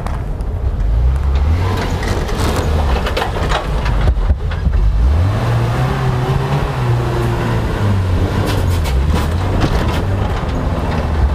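UAZ-315195 (UAZ Hunter) off-roader's engine revving hard under load as it climbs a steep sandy slope. The revs rise about halfway through, then dip and pick up again, with scattered clatter on top.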